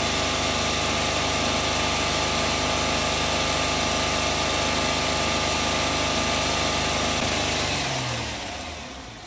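Honda Odyssey's 3.5-litre J-series V6 held steady at about 3,000 rpm, then the throttle is let go near the end and the revs fall back to a quieter idle. The engine is being revved to burp trapped air out of the cooling system after a new timing belt and water pump.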